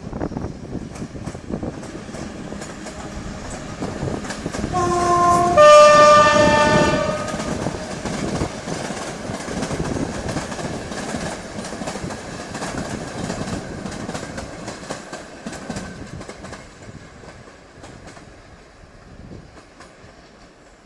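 Passenger train passing through a station, sounding its horn about five seconds in: a short lower note, then a longer higher note. The wheels clack steadily over the rail joints, fading away near the end.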